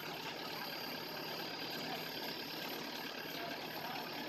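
Rice combine harvester's engine idling steadily while the machine sits bogged in deep paddy mud.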